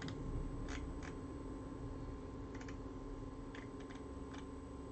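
Scattered keystrokes on a computer keyboard, a handful of separate clicks spread over a few seconds, over a steady low hum.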